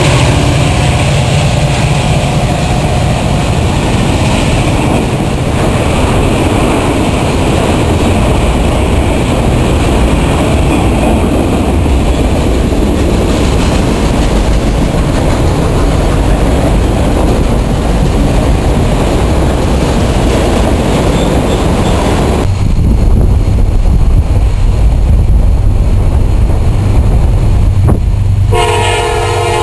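Freight train passing close by: CSX diesel locomotives and then a long string of autorack cars, their wheels rumbling and clattering over the rails. After a cut the clatter gives way to a low rumble, and near the end a multi-note locomotive horn sounds from an approaching Amtrak passenger train.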